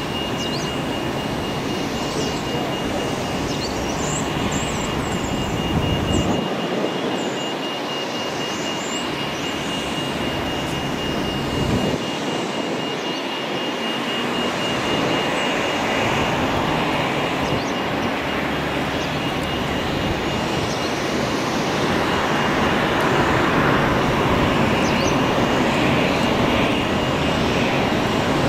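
Boeing 747-8 freighter on final approach, its four GEnx turbofans making steady jet noise that grows louder in the last few seconds as it comes nearer. A thin steady high tone runs through the first half.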